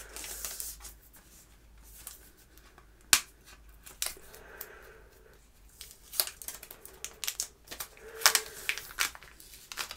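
Sticky protective plastic film being peeled off an e-reader's screen: crinkling, tearing rustles with scattered sharp clicks as the device is handled.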